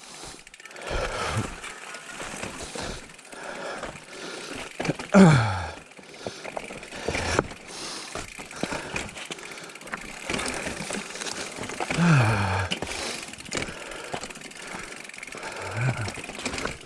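Mountain bikes being pushed on foot over rough trail: scuffing steps and rattling throughout, with three short groans that fall in pitch, the loudest about five seconds in.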